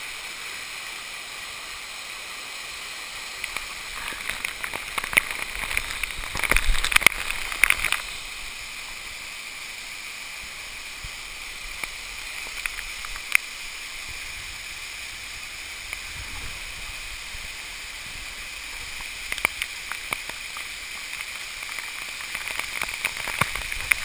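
Waterfall cascading over rock close to a waterproof camera, a steady rushing hiss. Spells of louder splashing and sharp clicks come a few seconds in and again later on, as water hits around the camera.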